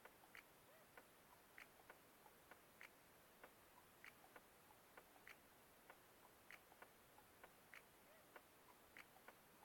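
Near silence broken by faint, irregular small clicks and ticks, about two a second.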